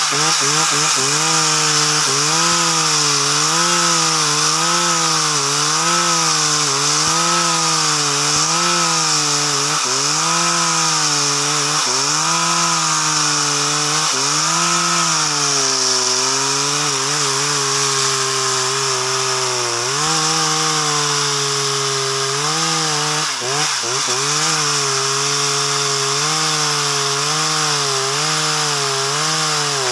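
Stihl chainsaw at full throttle ripping lengthwise through a very hard log. Its engine pitch dips and recovers about once a second as the bar is worked through the cut, holds steadier for a few seconds past the middle, then picks up again.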